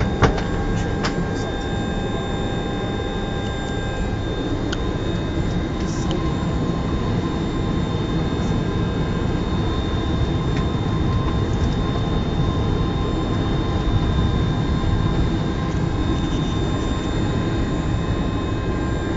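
Airbus A300 flight-deck ambience on the ground before takeoff: a steady rumble from the idling jet engines and the cockpit air supply, with several faint steady whines from the flight-deck equipment. A single sharp click comes just after the start.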